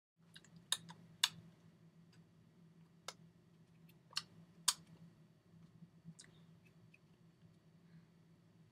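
Sharp, brief clicks and taps of hands and fingers striking each other during sign language, about five loud ones in the first five seconds and a few softer ones later, over a faint steady low hum.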